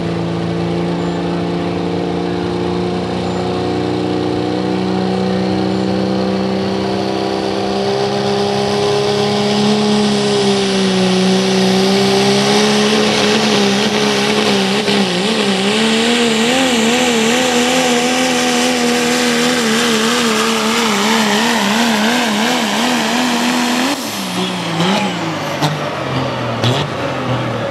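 Dodge Ram Pro Stock pulling truck's diesel engine running flat out under load, its pitch creeping slowly upward, then wavering rapidly up and down over the second half of the pull. The engine note drops off abruptly near the end, followed by a few sharp knocks.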